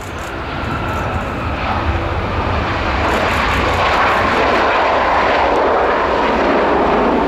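Boeing 737-800's CFM56 jet engines on the landing rollout just after touchdown. A broad engine roar with a low rumble builds over the first few seconds, then holds loud and steady.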